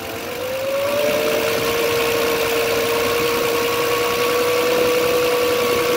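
Hyundai Genesis Coupe engine revved and held, with a steady whine rising in the first second and then holding: the alternator's bad bearings or pulley.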